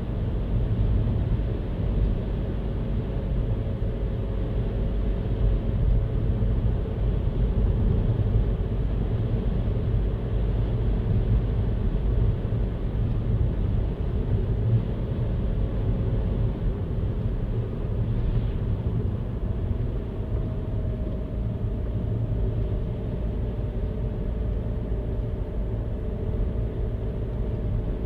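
Steady low rumble of a car driving, engine and tyre noise without change.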